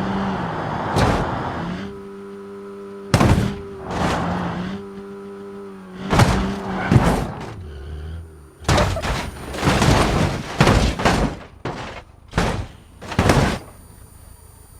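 A series of about a dozen heavy knocks and thuds at irregular intervals, over a steady low hum during the first half.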